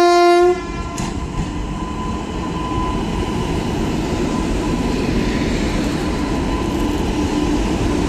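An electric locomotive's horn gives a warning blast to clear track workers off the line, cutting off about half a second in. The locomotive then rolls past with a steady rumble and rail noise that grows gradually louder.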